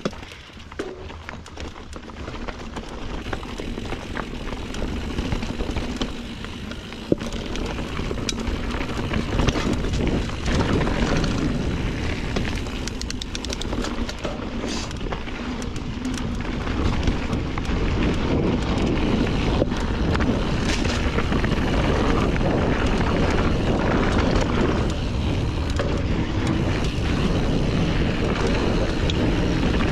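Wind rumbling over an action camera's microphone as a Norco Sight A2 mountain bike rides a rough trail, with tyre noise and many sharp clicks and rattles from the bike. The rumble grows louder over the first ten seconds or so as speed picks up, then holds steady.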